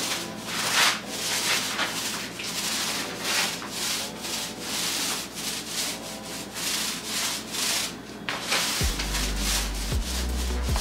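Foam paint roller rubbing back and forth over a wet, glossy coating on a tabletop, in repeated strokes about two a second. A steady low hum comes in near the end.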